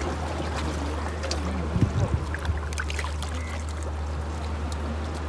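Sea water lapping and splashing against the rocks, with a steady low rumble of wind on the microphone. A couple of dull knocks stand out about two seconds in.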